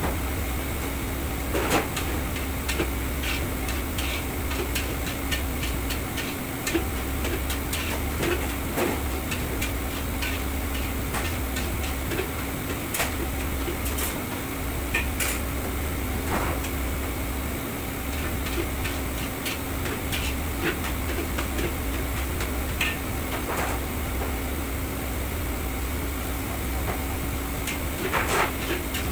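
Metal ladle and spatula knocking and scraping against a wok at irregular intervals, with a cluster of knocks near the end, over a steady low hum from the kitchen's burners and extraction.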